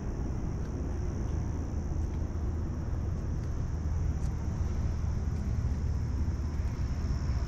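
Steady outdoor background noise: a low rumble with a constant high-pitched hiss above it, and no distinct events.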